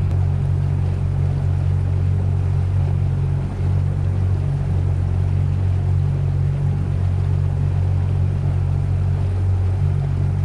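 Boat's gasoline engine running steadily while trolling: a constant low drone with a rushing noise of wind and water above it.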